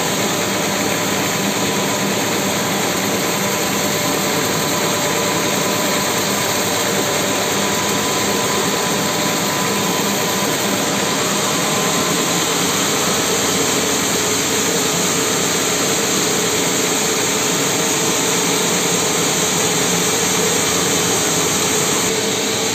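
Large vertical band sawmill running steadily, its blade sawing lengthwise through a mahogany log.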